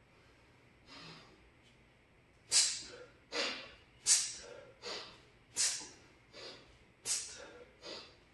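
A man's forceful breathing in time with kettlebell swings: four rounds of a sharp, loud breath followed by a softer one, repeating about every one and a half seconds, starting a couple of seconds in.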